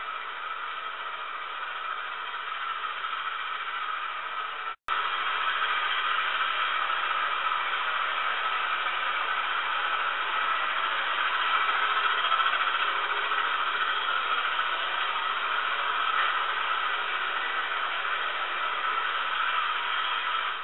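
LGB 2060 G-scale model diesel locomotive running under power, its LGB diesel sound unit playing a steady engine sound over the running noise of the motor and wheels on the track. The sound cuts out for an instant about five seconds in, then comes back a little louder.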